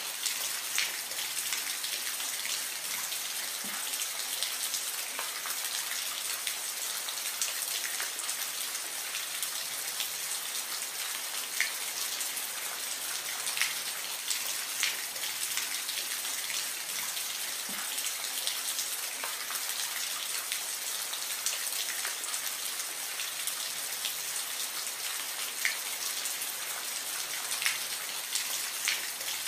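Steady soft rain: an even hiss with scattered single drops ticking sharply close by.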